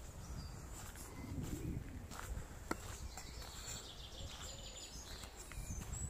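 Footsteps of a person walking on a dirt lane, with faint birdsong over a steady low rumble.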